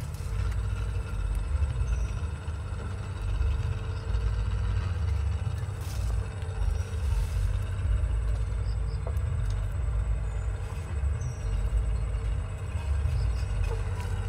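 Uneven low outdoor rumble, the kind of background heard from wind buffeting a microphone or distant traffic, with no distinct event standing out.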